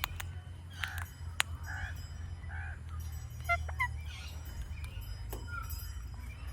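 Indian ringneck parakeet making a few sharp clicks in the first second and a half, then a series of short chirps and squawks, over a steady low hum.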